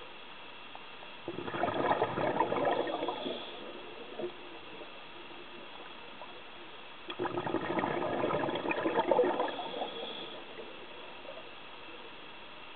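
A scuba diver's exhaust bubbles gurgling from the regulator, twice, each burst two to three seconds long and about six seconds apart, with a faint steady hiss between.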